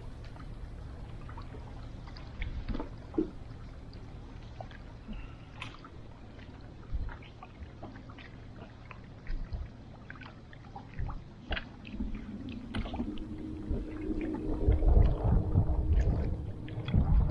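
Small-boat sounds on open water: water lapping at the hull with scattered small knocks and clicks. Near the end a steady low hum comes in with louder rumbling.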